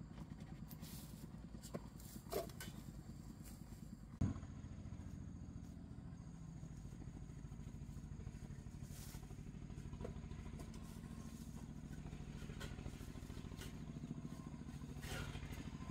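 A small engine running steadily, with a couple of light knocks, the louder one about four seconds in.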